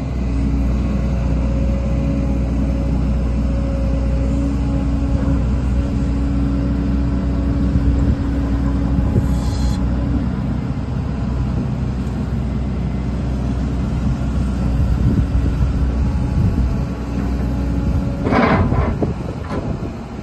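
Volvo EC210D excavator's 4.8-litre Volvo D5E diesel engine running steadily as the hydraulics raise and lower the boom and arm. A steady tone in the engine sound holds until about halfway, there is a brief hiss about nine seconds in, and a short louder burst of noise comes near the end.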